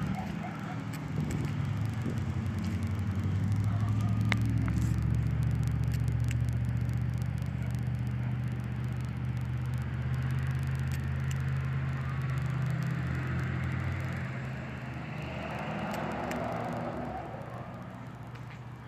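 A low, steady engine hum that swells through the middle and fades near the end, with a few faint clicks.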